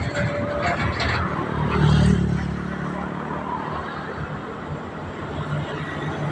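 Multi-trailer coal-hauling dump trucks passing on the road: a steady rumble of diesel engines and tyres with some rattling early on, swelling to its loudest about two seconds in.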